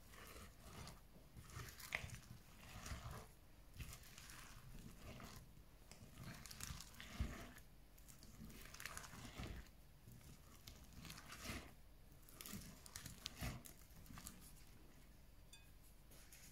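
Spatula folding thick batter through chopped apples in a glass bowl: faint, irregular wet squelching and scraping strokes, with a few sharper clicks.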